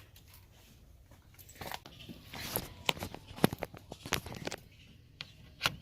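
Irregular clicks and knocks of a Toyota Tundra interior door handle assembly and its lock rod being handled and set in the tension-adjustment grooves, starting about a second and a half in.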